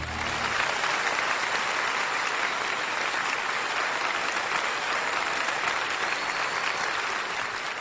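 Large audience applauding, a dense steady clapping that starts as the final held chord of the music dies away.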